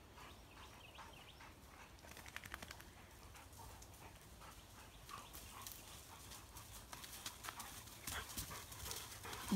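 Dogo Argentinos trotting along a sandy, leaf-strewn trail: scattered light paw steps and rustles, thickest about two seconds in, with faint panting.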